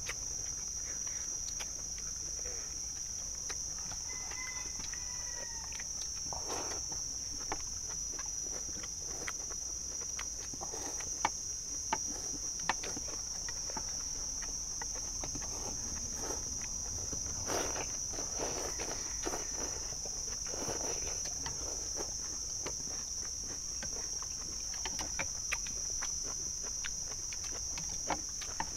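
A steady, high-pitched insect drone, with repeated noodle slurping and clicks of chopsticks and spoons against stainless steel bowls.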